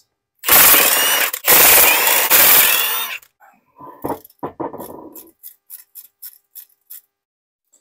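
Cordless impact wrench on a swivel-socket extension running a transmission case bolt out in two long bursts, its whine sliding in pitch. These are followed by a string of light metallic clicks and knocks as the shifter on top of the gearbox is worked by hand.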